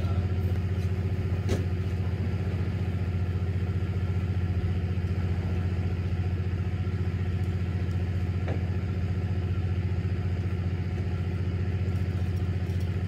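A fishing boat's engine running steadily, a low even drone that does not change, with a couple of faint clicks.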